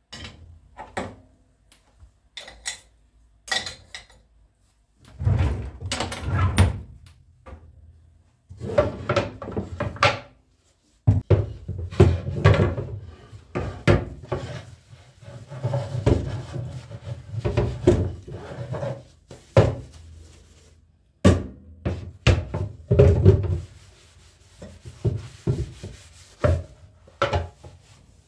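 Household objects being handled: a run of irregular knocks and thuds on wood, with rubbing and scraping between them.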